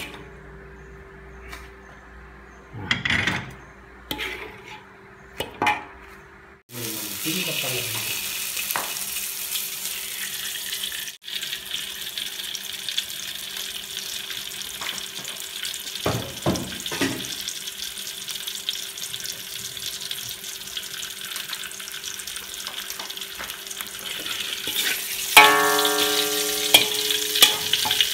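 Hot oil in a metal wok sizzling steadily. The sizzle starts abruptly about seven seconds in, as food goes into the oil, and runs on while a metal spoon stirs. Light knocks of the spoon on the wok come before it, and a louder clank with a short ringing comes near the end.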